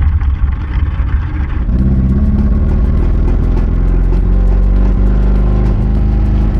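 1986 Ford Ranger's 2.3-litre four-cylinder engine running while the truck drives, held at a steady speed; about two seconds in it settles into a higher, steadier note. The engine is down on power.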